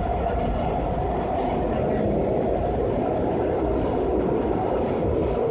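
Washington Metro subway train running between stations, a steady rumble of wheels on rail heard inside the passenger car.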